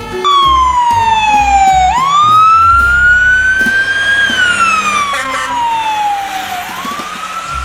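Fire engine siren wailing, its pitch sweeping slowly down, up, down and rising again, each sweep lasting about two to three seconds.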